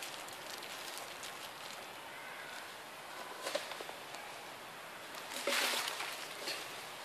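Faint rustling with scattered light clicks, and one brief louder rustle about five and a half seconds in.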